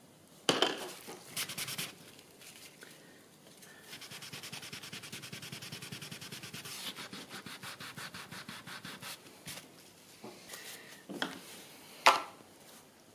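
Rapid back-and-forth rubbing, several even strokes a second, lasting about five seconds through the middle. A sharp knock comes about half a second in, and another near the end.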